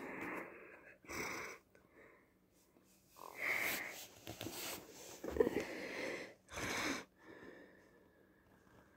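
A white cat pawing at the phone and pushing its face against it, right at the microphone: about five short bursts of noise, the loudest a little past the middle.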